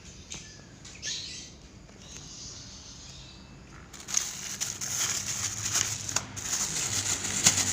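Irregular rustling and crackling handling noise, setting in about four seconds in, with a few sharp clicks, the loudest near the end.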